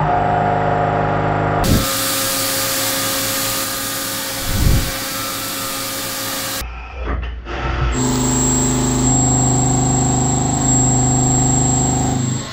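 CNC mill's end mill cutting 15-5 stainless steel: a steady pitched cutting whine, with a broad hiss of coolant spray from about two to six and a half seconds in. The sound changes abruptly a few times.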